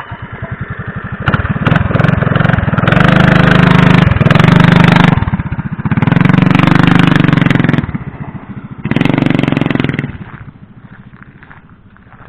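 Mini bike's small single-cylinder engine with an open header exhaust, loud, opened up in three long bursts of throttle and falling back to a quieter idle about ten seconds in.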